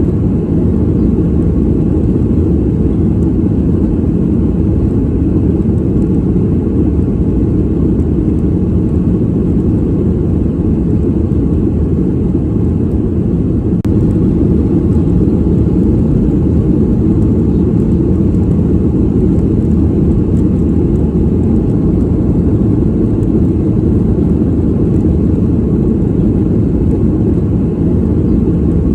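Airliner cabin noise in flight: a steady, low rushing drone of engines and airflow, unchanging throughout.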